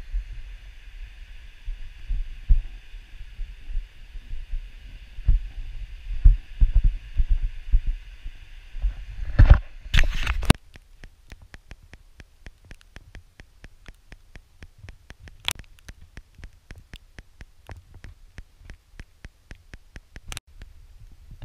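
Irregular low thumps of wind and handling on a handheld action camera over a steady hiss. After an abrupt cut about ten seconds in, it drops to a much quieter run of even clicks, about four a second.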